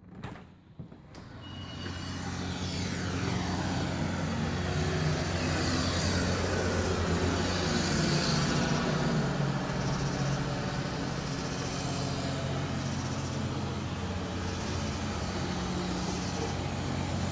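Steady, loud mechanical drone with a low hum from machinery at a nearby Microsoft site, close enough in sound to be taken for a lawn mower. It swells up over the first few seconds after a click, as a door opens onto it, then holds.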